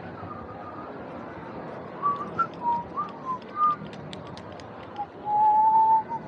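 A person whistling a short tune close to the microphone: a few short notes, then one long held note near the end, over steady background noise.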